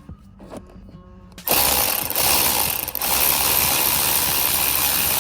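A ratchet wrench running rapidly, clicking fast enough to blur into a continuous rattle, as it drives in one of the 10 mm bolts that hold the steering-wheel airbag. It starts about a second and a half in and runs for about four seconds, with two brief pauses.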